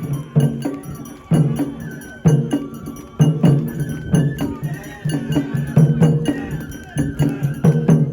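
Japanese festival hayashi music: taiko drums beating a steady rhythm, a small metal bell clanging in time, and a high melody above.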